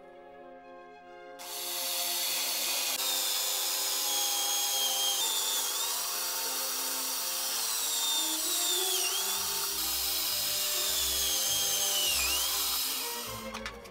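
Corded drill in a drill stand boring through a clear acrylic sheet, starting about a second and a half in and running steadily until near the end. A high whine rides on it and dips in pitch a few times as the bit cuts. Background music plays underneath.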